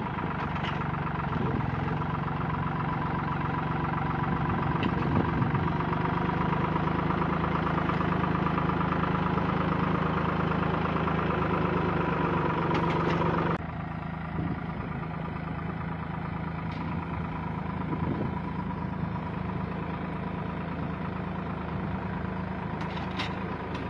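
Tractor diesel engine running steadily. A little over halfway through, the sound changes abruptly to a quieter, steady tractor engine.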